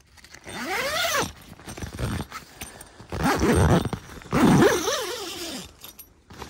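Zip on the door panel of a Trakker Tempus 100T social cap pulled in three long strokes. Each gives a whine that rises and then falls in pitch as the slider speeds up and slows down.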